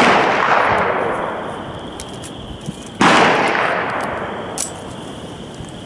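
Two pistol shots from a Smith & Wesson Model 41 .22 rimfire target pistol, about three seconds apart, each a sharp crack that trails off slowly.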